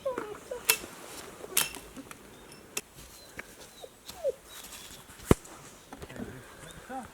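A wood campfire cracking and popping in sharp, irregular snaps, one loud crack about five seconds in, with short squeaky animal calls in between that rise and fall in pitch.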